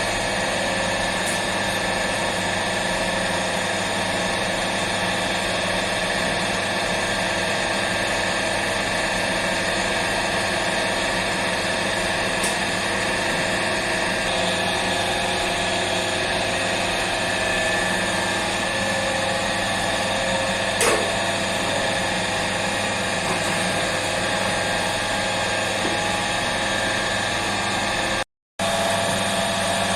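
Steady machine hum made of several constant tones, typical of bakery machinery running, with a single sharp click about three quarters of the way through; the sound cuts out for a split second near the end.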